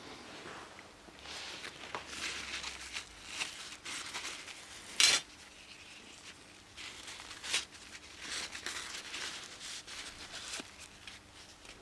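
Handling noises from hand work on a model part: irregular rustling and scraping, with a sharp click about five seconds in and a smaller one about two and a half seconds later.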